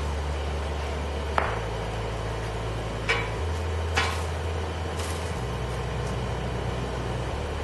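Newly lit coal forge on its first test run: a steady rushing noise, with four sharp clinks or taps spread over a few seconds.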